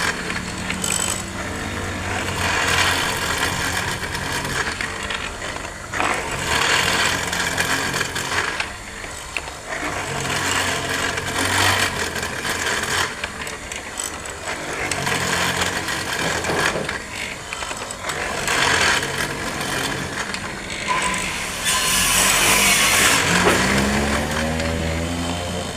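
Electric power tool cutting a mortise into a wooden door, its motor running steadily and bogging as it bites into the wood every few seconds. Near the end the motor's pitch rises as the load comes off.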